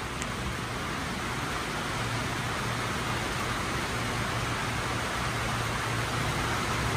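Steady rain falling, an even hiss, with a low steady hum underneath that grows a little louder about two seconds in.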